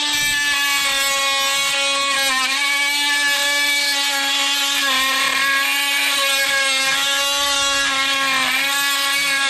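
DeWalt DCS356 brushless oscillating multi-tool running with a metal-cutting blade pressed against a hardened steel bolt. It gives a steady high buzz whose pitch sags briefly about three times as it is pushed in. The blade is making no headway on the hard steel.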